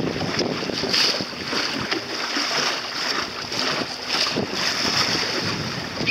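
Wind buffeting the microphone over choppy sea water splashing and lapping, swelling and easing in irregular gusts.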